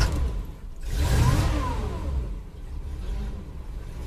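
A 1983 Chevy C30's 350 V8 engine, heard from inside the cab, just after starting. It revs up and back down once about a second in, then settles to a steady idle.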